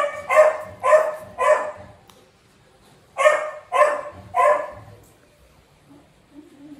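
Shih Tzu puppy barking: four quick barks, a pause of about a second and a half, then three more.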